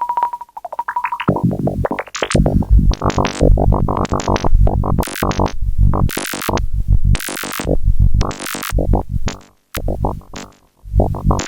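Eurorack modular synthesizer patch playing, its oscillators modulated by control voltages: first a rapid stream of short beeps at one pitch, then from about two seconds in a jumble of short bleeps and noisy bursts that jump in pitch and brightness as the control-voltage amounts are attenuated.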